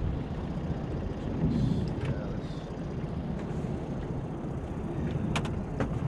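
Steady low rumble of a boat's engine. Two sharp clicks come near the end, about half a second apart.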